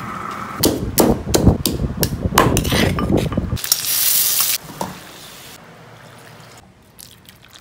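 Kitchen cooking sounds: a run of knocks and clatter, then a loud burst of sizzling about halfway through as sliced onions hit hot oil in a wok, then a quieter low hiss.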